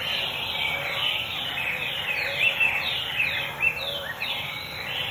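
Small birds calling in a marsh chorus: many short notes, each falling in pitch, repeat and overlap several times a second, with fainter lower chirps beneath and a steady background hum of the wetland.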